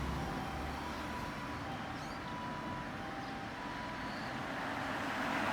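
Japanese ambulance harmonic siren sounding its two-tone hi-lo pattern over road traffic noise. The tones stop about four seconds in, and a passing vehicle's road noise swells near the end.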